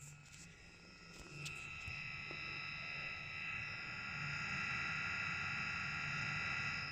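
ResMed AirSense 10 CPAP machine's blower turbine running with a high-pitched whine that swells over the first few seconds and then holds steady and loud: the noise of a failing turbine. A few light clicks come near the start.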